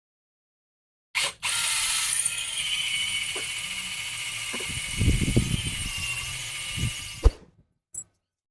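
Electric welding arc crackling and hissing steadily for about six seconds, starting and stopping abruptly, with a sharp click as it cuts off.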